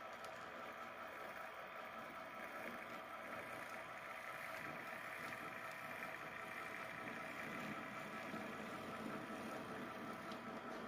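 HO scale model freight train rolling slowly along the layout track: a steady mechanical hum with the running of wheels on rail, getting a little louder about four seconds in as more cars come past.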